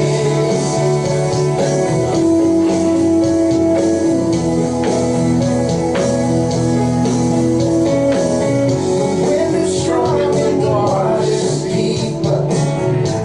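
Live worship band playing a mostly instrumental passage of a praise song, with guitar over sustained chords.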